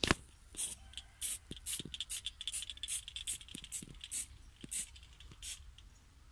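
Aerosol spray-paint can sprayed in a string of short hissing bursts, about a dozen spaced a fraction of a second apart, with a few faint taps in between.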